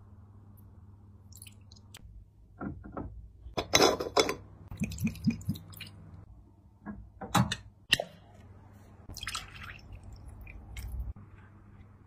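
Pomegranate liqueur being poured from a glass decanter over ice cubes in a glass tumbler: a few seconds of short splashes and glassy clinks, then a sharp knock a few seconds later and a few lighter ticks.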